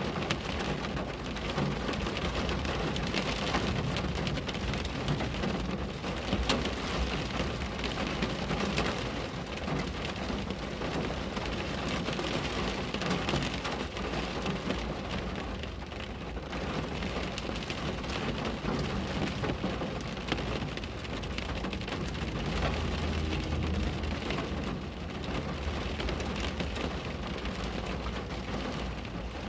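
Steady rain on a window pane: a continuous hiss with many separate drop hits tapping on the glass. A low rumble runs underneath and swells briefly about two-thirds of the way through.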